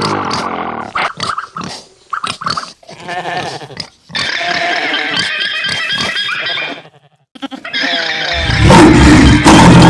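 Pig sound effects: a run of short grunts, then a longer rasping pig call lasting a few seconds. Near the end a much louder, deep roar cuts in.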